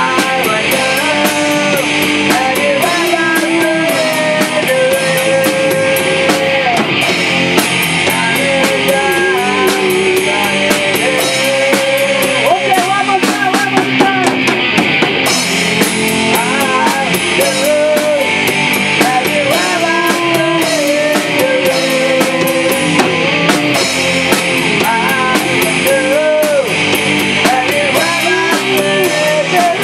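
A rock band playing live: electric guitars over a drum kit with steady cymbals and drum hits, loud and continuous, with melodic guitar lines bending in pitch.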